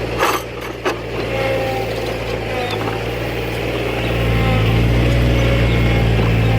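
A heavy farm machine's engine running steadily, with two sharp knocks in the first second; the engine grows louder about four seconds in.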